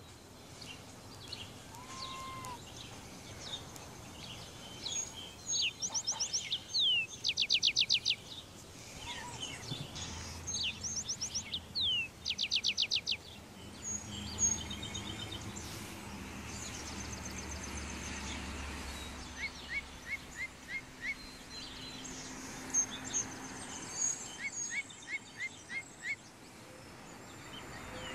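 Several songbirds singing in the early morning: rapid high trills and slurred whistled notes from more than one bird, with two quick runs of short chirps in the second half. A faint low rumble sits underneath through the middle.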